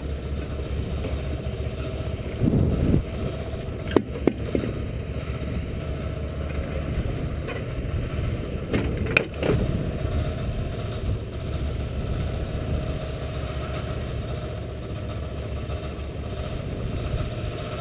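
Boat engine idling steadily, with a few short knocks about four and nine seconds in.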